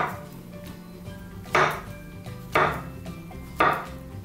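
Kitchen knife slicing through a banana and knocking on a wooden cutting board: four chops, about a second apart.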